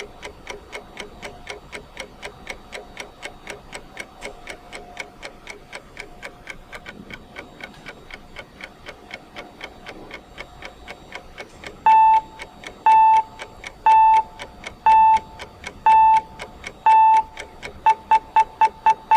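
Countdown timer's ticking-clock sound, rapid even ticks. About twelve seconds in, a short electronic beep starts sounding once a second, six times, then speeds into quick repeated beeps near the end: the warning of the last seconds before time is up.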